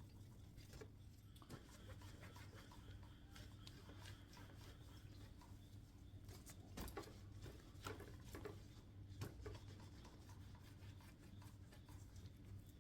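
Faint rubbing and light scattered clicks of a cloth polishing a motorcycle's metal exhaust expansion chamber with metal polish, over a steady low hum.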